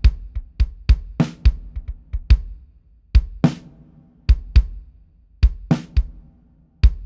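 Recorded drum playback of a kick and snare pattern: several kick drum hits between snare hits, with the snare landing about every two and a quarter seconds. The kick is being played with its low end boosted on a parametric EQ to give it more punch.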